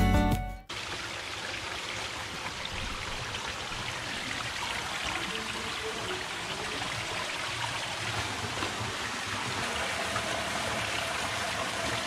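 Background music cuts off within the first second. Then a shallow stream keeps up a steady rush as it runs and trickles over rocks.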